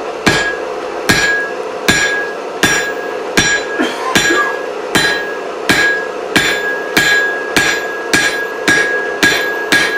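Blacksmith's hand hammer striking hot steel chisel stock on the anvil in a steady rhythm of blows, each with a bright ringing note; the blows quicken toward the end. This is the drawing-down that reduces the stock's cross section for the chisel. A steady hum runs underneath.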